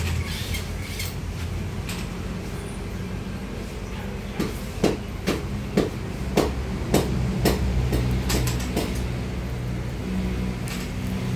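Welding a patch onto a steel fuel tank: a run of sharp pops, about two a second, from about four to nine seconds in, over a steady low hum.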